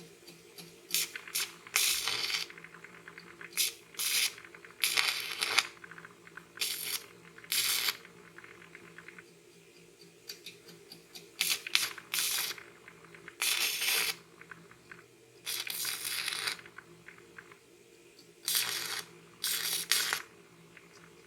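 Stick-welding arc from a YesWelder 205 A inverter welder burning a 5/32 in 6013 rod, crackling and sizzling in about a dozen short, separate bursts, each well under a second to about a second long. The arc is struck again and again, as on tack welds or a beginner's stop-start bead. A steady low hum runs underneath.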